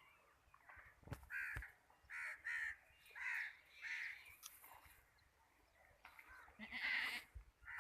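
Harsh bird calls repeating outdoors, about six short calls spread over several seconds.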